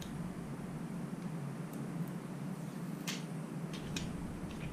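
Protective plastic film being peeled off the rear screen of a GoPro Hero 6 action camera, giving a few small crackling clicks about three and four seconds in. Under them runs a steady low room hum.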